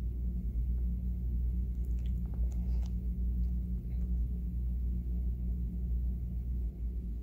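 Steady low hum, with a few faint crinkles of a clear plastic nail-foil packet being handled about two to four seconds in.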